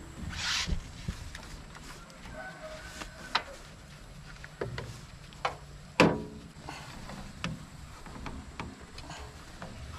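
Scattered metallic clicks and knocks of a hand tool and fittings on a filter housing of a stopped excavator diesel engine during filter servicing, with a short hiss about half a second in and a sharper knock just before the six-second mark.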